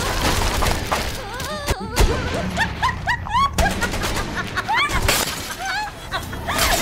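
Dramatic cartoon soundtrack: music with a crash of something shattering and breaking.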